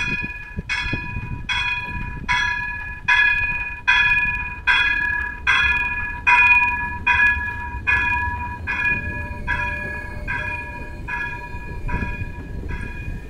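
Warning bell of an Alstom Coradia iLint hydrogen train ringing steadily as it passes, about four strikes every three seconds, each a ringing tone that fades, over the low rumble of the moving train.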